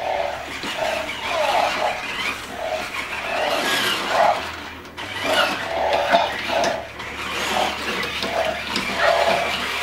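Spin Master Legendary Yoda animatronic toy running its advanced lightsaber routine: its motors whir as it turns and swings its arm, giving a string of short whirring pulses about twice a second.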